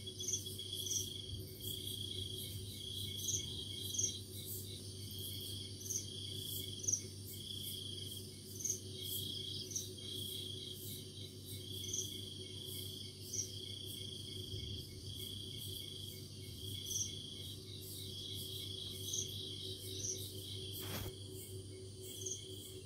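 Night insects, crickets among them, trilling in short bursts that repeat through the whole stretch, with a sharper, higher chirp every second or two, over a steady low hum.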